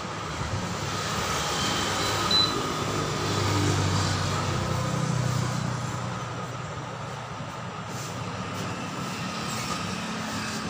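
Tyre-changing machine running, its motor giving a steady hum while the turntable turns the steel rim and the tyre bead is worked onto it; the hum swells a little partway through.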